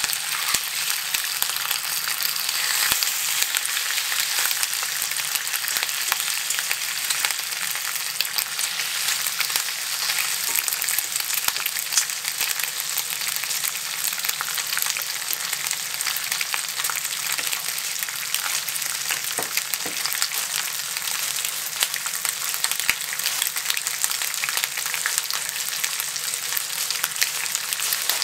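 Bacon strips frying in a Lodge cast iron skillet: a steady sizzle with a constant scatter of small crackling pops.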